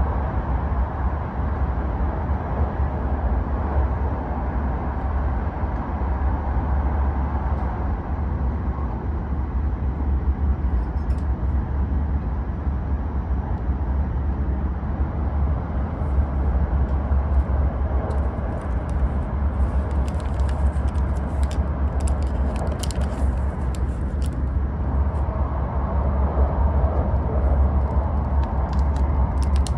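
Steady low rumble and rush of a Shinkansen train at speed, heard from inside the passenger cabin while it runs through the Seikan Tunnel. Light clicks and crinkling of paper and foil packaging come in briefly about two-thirds of the way through.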